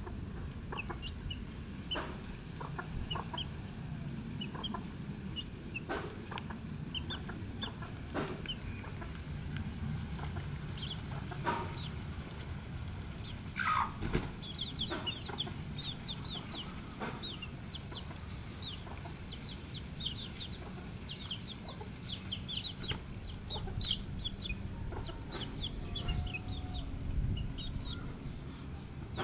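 Chicken chicks peeping in many short, high calls, sparse at first and thick and continuous in the second half, with a hen clucking and a louder call about halfway through. Scattered sharp ticks and a low steady rumble lie underneath.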